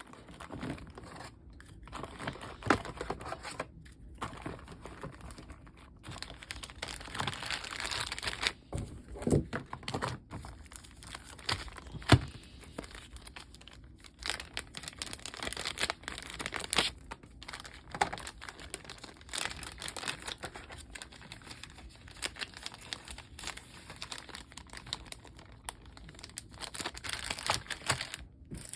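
Board game cards and components being handled and packed into a storage box: crinkling packaging and rustling with many small knocks and clicks, and one sharp click about twelve seconds in.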